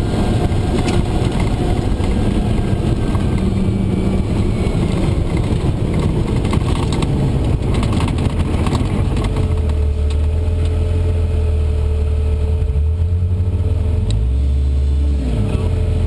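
Engine and drivetrain noise inside the cab of a Steyr-Puch Pinzgauer driving hard on a dirt track, with knocks and rattles over the bumps. About halfway through it settles into a steadier low drone as the truck slows and rolls up to a stop.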